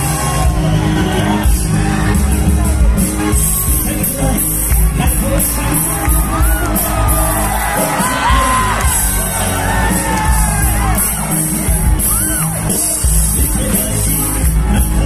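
A Nepali folk-rock band playing live: heavy bass guitar and drums with cymbals, and the lead singer's voice in a wavering melody over them. Shouts and whoops from the crowd mix in.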